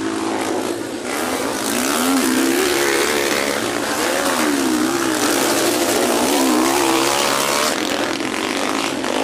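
Motocross dirt bike engines revving on the track, their pitch rising and falling over and over as the riders work the throttle.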